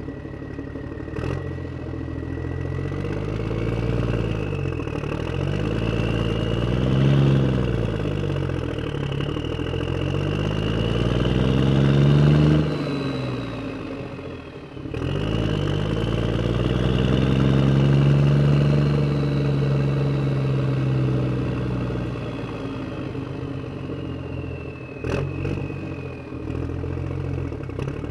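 Truck engine sound, running and revving up and down several times, breaking off briefly about halfway through before starting again. A sharp click comes near the start and another near the end.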